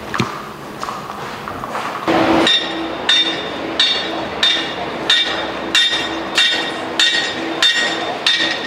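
A church bell struck over and over, starting about two seconds in, about one and a half strokes a second, each stroke ringing on into the next.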